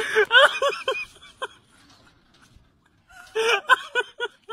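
High-pitched cackling laughter in quick repeated bursts, in two bouts with a pause of about two seconds between them.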